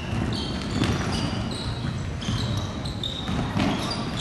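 Basketball bouncing on a hardwood gym court during play, with short high-pitched sneaker squeaks scattered throughout.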